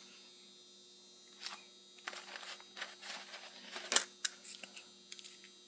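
Small plastic clicks and rustles as a round plastic container is handled and its lid opened, the sharpest click about four seconds in.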